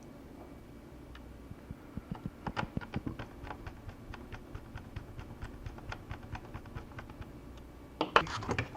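Small, irregular clicks and ticks of a screwdriver driving a screw into a laptop's plastic chassis, with a few louder knocks near the end.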